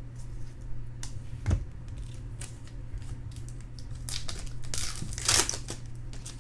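Trading cards and foil pack wrappers being handled: scattered clicks and crinkling rustles, denser between about four and five and a half seconds in, over a low steady hum.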